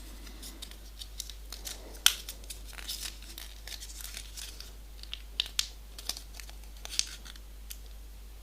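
A small folded paper origami piece being handled and folded by hand: soft paper crinkles and light scattered ticks, the sharpest about two seconds in.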